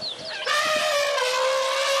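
Short bird chirps, then about half a second in a loud, long, steady pitched animal call that falls slightly in pitch.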